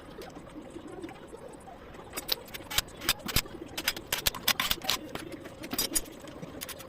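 A rapid series of sharp clicks and taps from about two seconds in until about six seconds in, over a steady low background hum.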